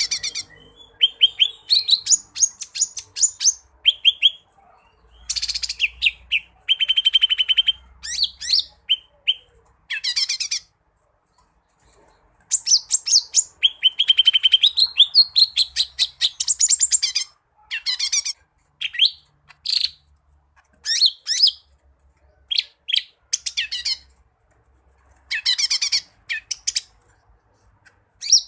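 Green leafbird (cucak ijo) in full song: bursts of fast high trills, chattering runs and whistled notes in phrases of one to three seconds with short pauses between, a varied song of mimicked phrases.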